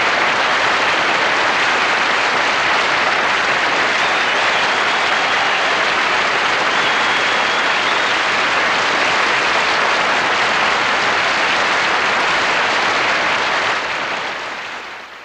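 Studio audience applauding steadily, the applause fading out near the end.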